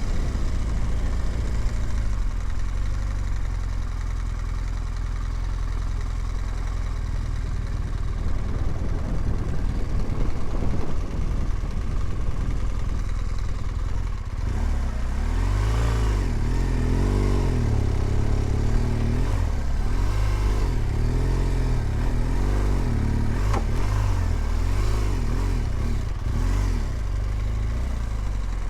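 BMW R1200GSA boxer-twin motorcycle engine under way on loose sand. From about halfway the revs rise and fall over and over as the throttle is opened and closed.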